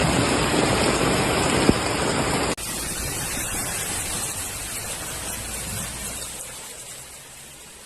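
Flash-flood water rushing in a steady loud hiss, with a short knock about a second and a half in. Just after two and a half seconds the sound cuts abruptly to a quieter rush of water that slowly fades.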